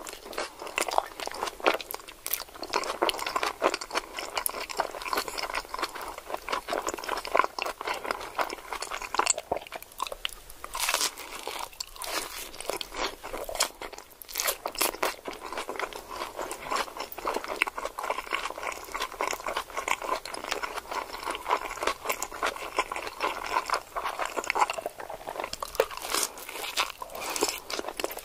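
Close-miked ASMR eating: a person biting and chewing a crunchy hard-shell taco, with a dense, continuous crackle of crisp crunches and only brief lulls.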